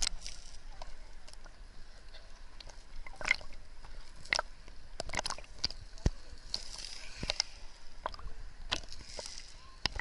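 Sea water sloshing and gurgling around a camera at the surface as it dips in and out of the water, with scattered sharp clicks and knocks and a couple of brief splashes.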